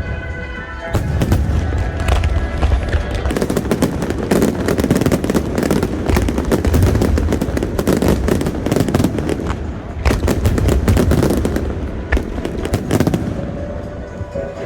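Fireworks finale barrage: a dense, continuous run of bursts and crackling over deep booms.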